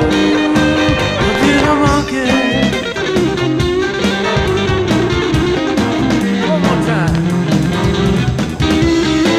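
Blues-rock music: an instrumental passage led by guitar, with bending notes over a steady drum beat.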